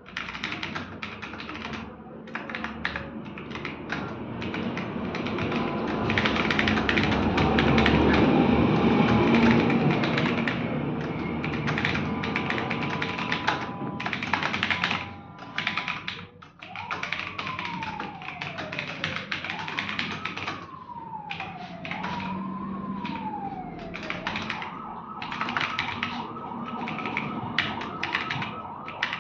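Fast, continuous typing on a computer keyboard, with an emergency-vehicle siren in the background. A louder rumble swells and fades around the middle. In the second half the siren sweeps down in pitch several times, then settles into a steady pulsing tone near the end.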